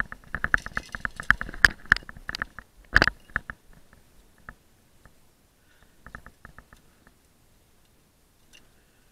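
Clicking and rattling of rappel hardware (carabiners and a rescue-8 descender on the rope) during a descent: rapid clicks for about three and a half seconds, then a few scattered clicks about six seconds in.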